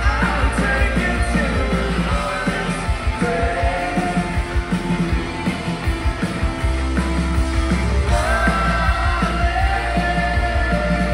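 A rock band playing live, with electric guitars, bass and drums under a sung vocal line, heard loud from within the crowd. The heavy bass and drum low end drops back about two seconds in and comes back in after about six and a half seconds.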